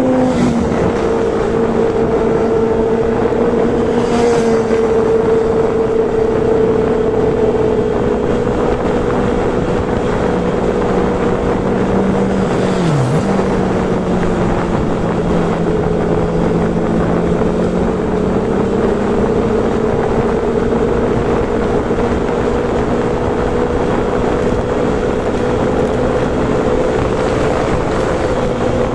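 Motorcycle engine running at a steady cruise under a steady rush of wind and road noise. About halfway through, the engine note drops sharply for a moment, then holds at a lower pitch.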